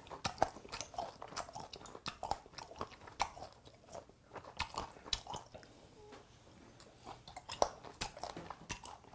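A man chewing a mouthful of food, with irregular crunching and wet mouth clicks.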